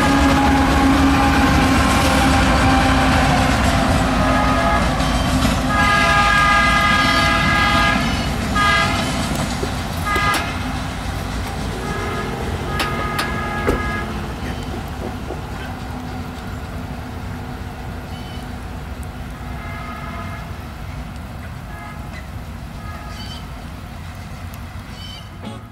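Train rumbling past and moving away, its rumble slowly fading. Its multi-note air horn sounds a series of blasts, a long one about six seconds in followed by shorter ones and another long one. Fainter, more distant horn blasts come near the end.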